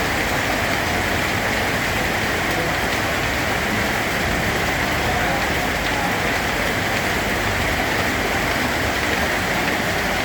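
Steady rain falling on a surface, an even, unbroken hiss of drops.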